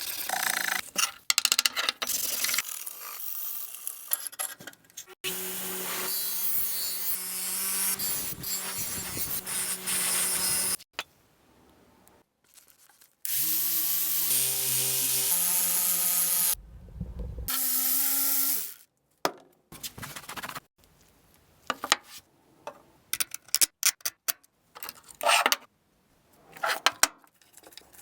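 A run of workshop sounds broken by sudden cuts: power tools running with a steady motor hum, then scattered light clicks and taps near the end.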